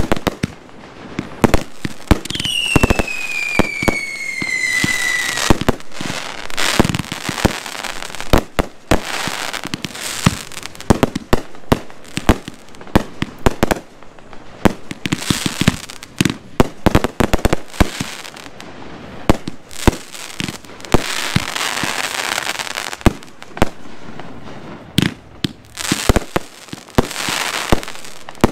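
Consumer aerial fireworks (500-gram cakes and reloadable shells) launching and bursting in a dense, rapid run of sharp shots, with stretches of crackling. About two seconds in, a whistle falls steadily in pitch for about three seconds.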